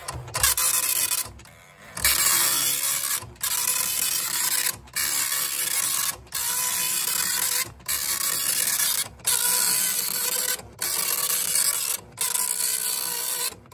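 Commodore 1526 (MPS-802) dot-matrix printer printing its self-test page, line by line. Each line is a burst of print-head buzzing about a second and a half long, with a short break between lines, about nine lines in all.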